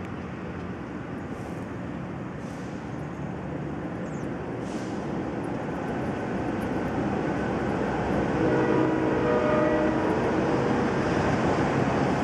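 Low, steady rumble of a passing vehicle that slowly grows louder, with a faint droning tone in its latter part.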